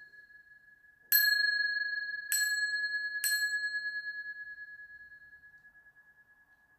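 Small meditation bells struck three times, about a second apart, each strike ringing out in one high, clear tone that slowly fades; the ring of an earlier strike is still sounding as the first one lands.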